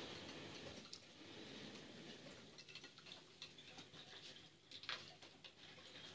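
A raccoon washing dishes in a stainless steel sink: faint, irregular clicks and taps of a bowl and plate knocking against each other and the sink, with slightly louder knocks about a second in and near five seconds in.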